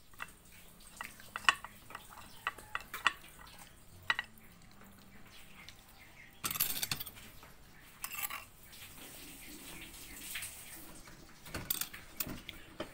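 Light clinks and taps of dishware and utensils, about a dozen in the first few seconds, then a few short scraping noises as fried fish is dipped into a saucer of chopped garlic and chili.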